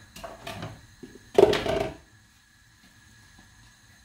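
Kitchen handling sounds: two short bouts of knocking and clatter, the second and louder one about a second and a half in.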